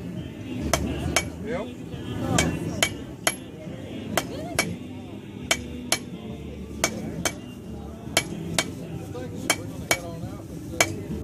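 Blacksmith's hammer striking hot metal on an anvil while drawing out the stock: sharp ringing blows at about two a second, with a couple of short pauses.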